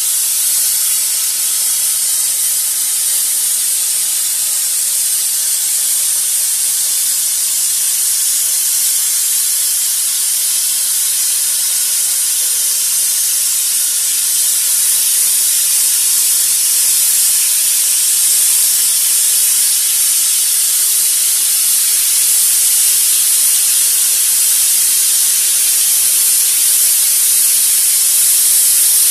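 Plasma cutting torch on a Bug-O Cypress circle cutter cutting through flat steel sheet: a steady, loud high hiss of the arc and air jet, getting slightly louder in the second half.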